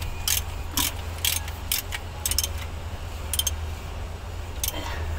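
Sharp metallic clicks from a wrench working the bolts of a diesel engine's fuel filter bracket. They come several in the first couple of seconds, then sparser, over a steady low hum.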